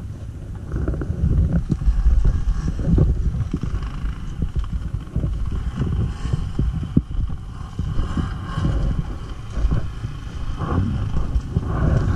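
Stels Guepard 850 ATV engine running as it is ridden over rough ground, the level rising and falling with throttle, with frequent irregular knocks and jolts.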